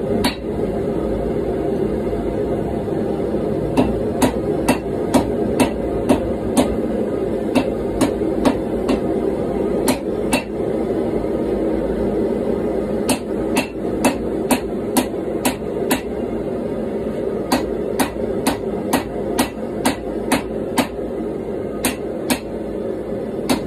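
A 1.5-pound rounding hammer striking a red-hot blade billet on an anvil in hand forging, in steady runs of about two blows a second with a pause of a couple of seconds near the middle. Behind the blows, a gas forge makes a steady running noise.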